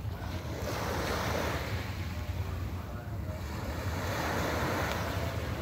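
Small waves washing onto the beach in two swells, about a second in and again near the end, with wind rumbling on the microphone.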